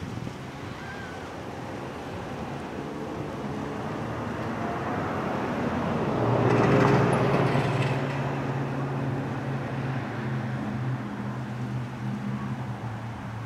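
Diesel-electric engine of a Florida East Coast Railway road locomotive (No. 427) running as it approaches slowly, a steady low drone. A rushing swell of vehicle noise builds to its loudest about halfway through, then the drone carries on.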